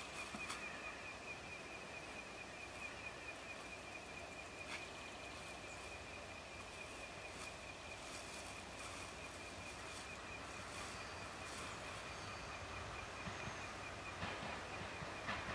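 DRB1m diesel train (DR1 cars with a 2M62U locomotive) approaching: a faint low rumble that grows louder near the end. A steady, high-pitched warbling tone sounds over it throughout.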